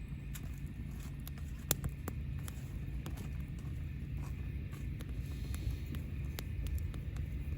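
Campfire crackling: irregular sharp pops and snaps from the burning wood over a steady low rumble.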